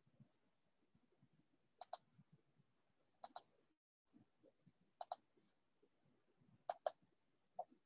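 Computer mouse double-clicking four times, about a second and a half apart, each a pair of quick sharp clicks, with one lighter single click near the end.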